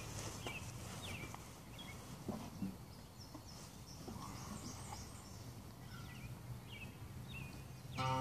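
Quiet rural outdoor ambience with a bird chirping repeatedly in short calls, and a couple of soft knocks about two and a half seconds in. Acoustic guitars start playing right at the end.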